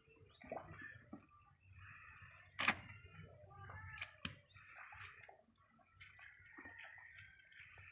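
Faint wet mud and water squelching and splashing as hands work through mud, with scattered sharp clicks and knocks, the loudest about two and a half seconds in.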